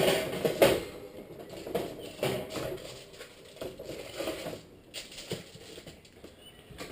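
Scattered knocks, clatter and rustling from a plastic headlight assembly being handled and set into an oven, with the sharpest knocks right at the start and about half a second in, then softer ones.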